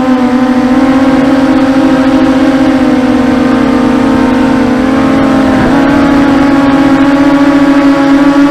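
Brushless motors and propellers of a 250-size FPV racing quadcopter whining steadily in flight. The pitch drops at the start as the throttle eases, then wavers briefly a little over halfway through.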